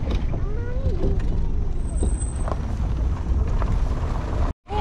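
Open safari jeep driving on a dirt track, a steady low rumble of engine and road noise, with a few sharp knocks as it rolls over a wooden plank bridge. A short wavering call is heard about half a second in, and the sound cuts out abruptly near the end.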